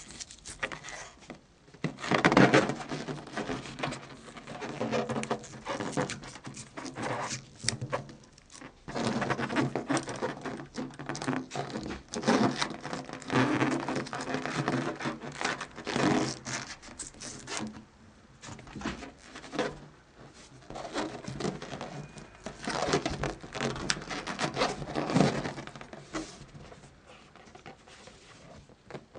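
Hands handling an inflated latex balloon, with irregular bursts of rubber rubbing against fingers and plastic as the balloon's knotted neck is worked into the cup of a balloon stick.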